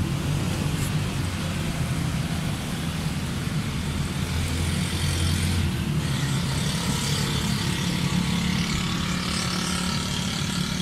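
Steady background motor-vehicle noise: a low engine hum with traffic haze, changing pitch about halfway through.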